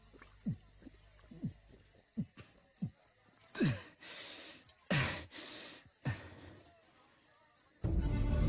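Film-soundtrack sound effects: short low tones that each drop in pitch, repeating under a second apart, over a faint, evenly spaced high ticking, with two short whooshes midway. Music comes in loudly near the end.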